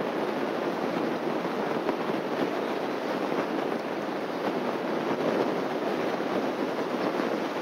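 Steady rushing background noise that does not change, with no distinct crunches or clicks standing out.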